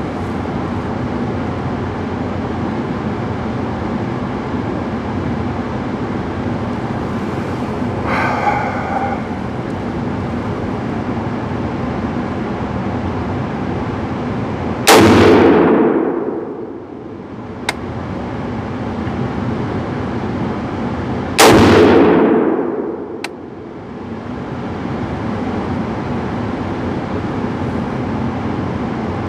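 Two single shots from a Loki Weapon Systems AR-15, about six and a half seconds apart, each echoing down the indoor range and dying away over about a second and a half. About two seconds after each shot there is a faint tink of ejected brass landing, over a steady background hum.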